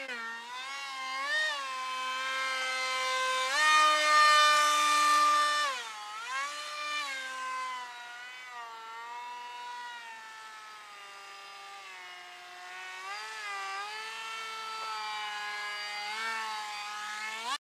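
Whine of a foam radio-controlled Alpha Jet model's electric motor and propeller. Its pitch rises and falls with throttle changes as the plane flies and passes by. It is loudest about four to six seconds in and cuts off suddenly at the end.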